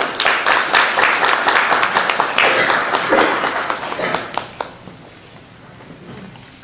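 Audience applauding, the clapping fading out about four and a half seconds in.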